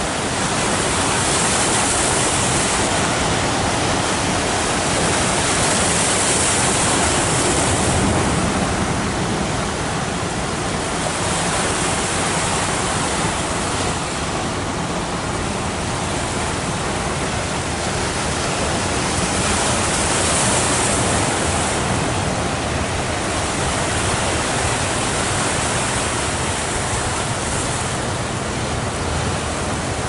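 Ocean surf breaking on a beach: a loud, steady rushing that swells and eases every few seconds as breakers come in.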